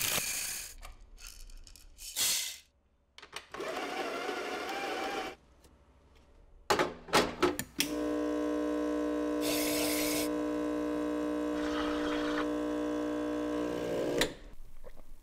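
Short bursts of rustling and a few clicks, then a Rancilio espresso machine's pump hums steadily for about six seconds as the shot is pulled, cutting off abruptly near the end.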